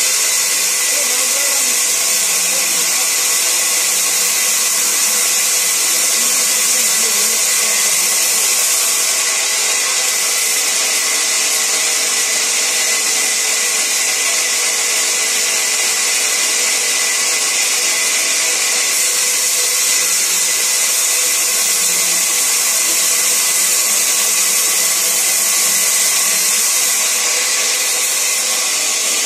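Sawmill band saw running steadily while its blade rips a long, thin timber board lengthwise: a continuous high hiss over a steady hum.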